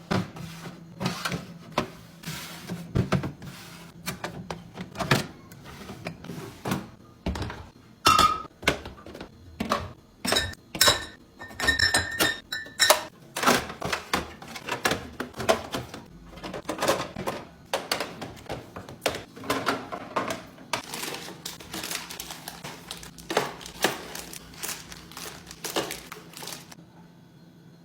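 Plastic fridge organisers and food packages being handled and set down in a refrigerator: a long run of irregular knocks, taps and clatters, with a few brief ringing clinks partway through. The handling stops abruptly near the end.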